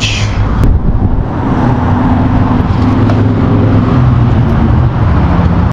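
An engine running steadily, a loud low rumble with a constant hum.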